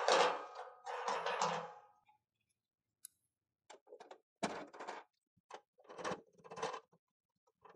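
Quiet metallic handling sounds: steel elevating nuts being spun down threaded studs in a sheet-steel panelboard enclosure. They come as short scraping, clicking bursts, two near the start, then a pause, then several more in the second half.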